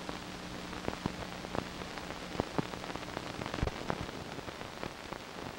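Steady hiss with scattered irregular clicks and pops and a faint low hum: the surface noise of an old 1940s film soundtrack.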